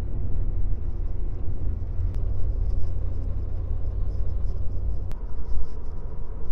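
Steady low road rumble of a car driving, as heard from inside the moving vehicle, with two faint clicks.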